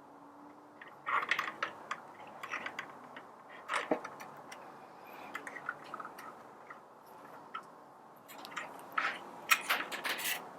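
Scattered clicks and light knocks of a coffee grinder's housing parts being handled and fitted together. There is one louder knock about four seconds in and a quick run of clicks near the end.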